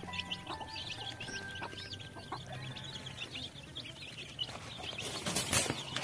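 A brood of ayam kampung (Indonesian native chicken) chicks peeping continuously in many short, high chirps. A brief loud noise cuts across the peeping about five seconds in.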